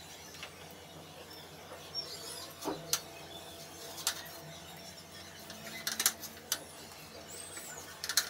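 Quiet food-handling sounds: scattered soft clicks and taps as raw pork loin slices are dipped in beaten egg and pressed into breadcrumbs on a plate. A few faint high chirps sound in the background.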